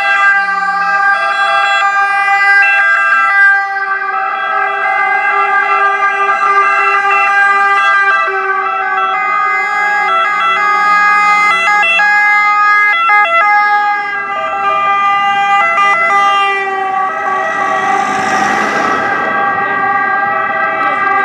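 Sirens of several ambulances and rescue cars sounding together in a passing column, their steady tones overlapping and switching pitch abruptly. A rush of noise swells and fades near the end.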